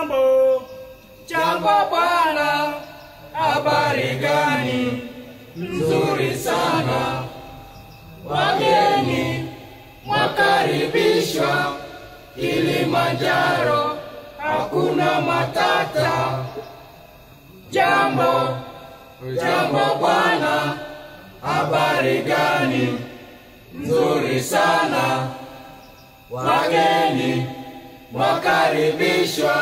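A group of voices singing a chant together a cappella, in short repeated phrases about every two seconds.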